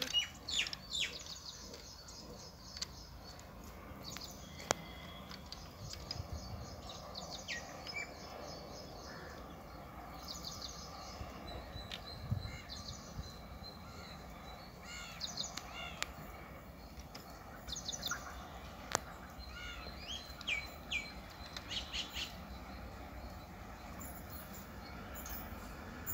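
Small birds chirping and calling repeatedly, short high notes scattered through, over a quiet steady background.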